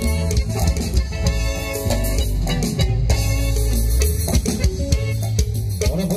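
Loud live band dance music with guitar, drums and heavy bass, playing continuously.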